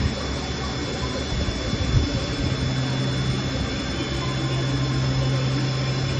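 Haas TL2 CNC lathe's spindle running, turning a round bar in its chuck: a steady machine hum. There is a short knock about two seconds in, after which a strong steady low hum sets in.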